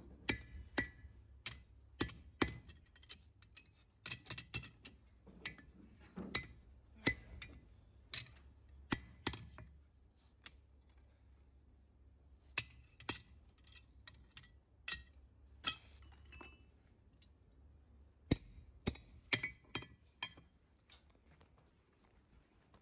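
A farrier's hammer strikes a steel horseshoe on an anvil to shape it. The ringing metallic blows come in irregular bursts with short pauses and stop shortly before the end.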